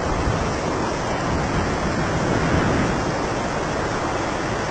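Steady rush of airflow buffeting the microphone in flight.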